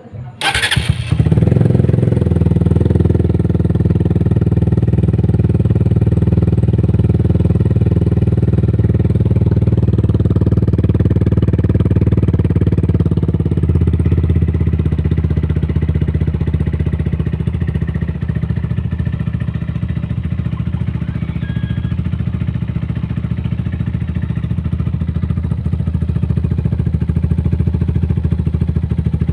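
Motorcycle engine fitted with a Yoshimura aftermarket exhaust, starting with a sudden burst about half a second in, then idling steadily with a full, bassy exhaust note.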